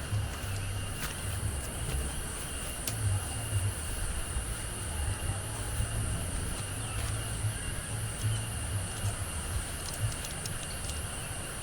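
Strong gusty wind buffeting the microphone in an uneven low rumble, over a steady high-pitched drone of insects.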